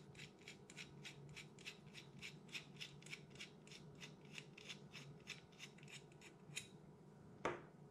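Pellet-liner retaining nut on an FX air-rifle barrel being unscrewed by hand: a faint, even run of small clicks, about four a second, that stops near the end. A single soft knock follows.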